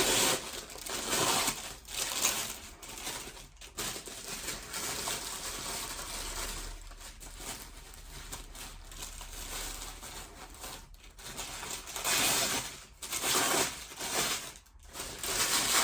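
Handling noise: irregular rustling and light knocks as things are moved about and set in place, with the loudest swells near the end.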